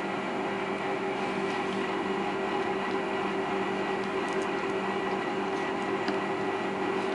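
Steady background hum of a small room, holding a few constant tones. Two or three faint plastic ticks come about four seconds in and near the end, as a small action figure is handled and set on its base stand.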